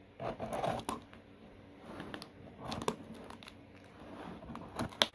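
Cardboard shipping box being handled and opened: irregular rustling and scraping of the cardboard, with a few sharp clicks, the loudest about three seconds in and near the end.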